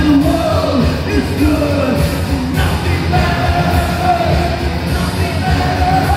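Live rock band playing at full volume: electric guitar over a steady, driving bass, with a voice singing a wavering melody line.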